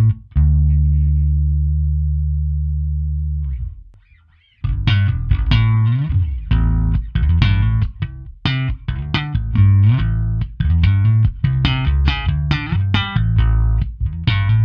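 Fender Vintera '60s Mustang short-scale electric bass played direct through an amp-simulation plugin. One held note rings and fades for about three seconds, then after a brief gap comes a busy run of plucked notes with a few sliding pitches.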